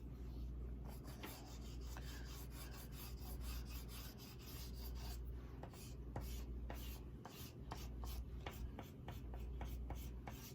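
Oil pastel rubbed across sketchbook paper in quick, repeated back-and-forth strokes, a soft scratchy rasp while colouring in a broad area.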